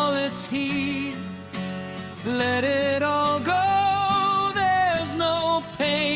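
Music: a song with a sung melody of long, wavering held notes over instrumental accompaniment.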